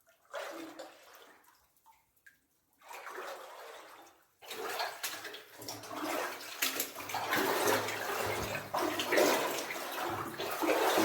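Boots wading through water in a flooded mine passage: two separate sloshing steps at first, then continuous splashing and sloshing from about four seconds in, getting louder.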